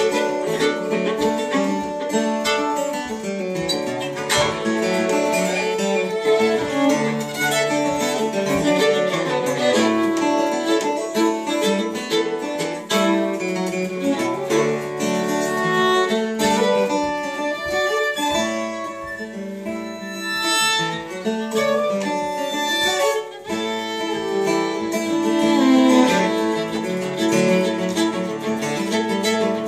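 Five-string fiddle and acoustic guitar playing a folk tune together, the fiddle bowing a melody of many quick notes over the guitar's picked accompaniment.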